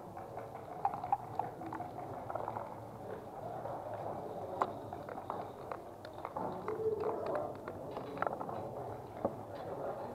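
Backgammon checkers being moved and set down on the board, a scatter of sharp clicks and clacks, with the dice landing on the board in the later part. A soft background murmur runs underneath.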